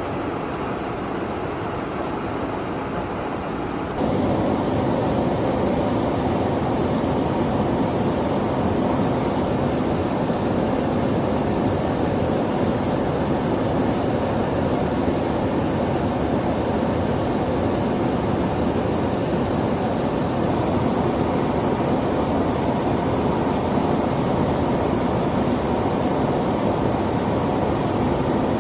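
Steady noise of engines and rushing air heard from inside a KC-135 Stratotanker in flight. About four seconds in it steps up, louder and brighter.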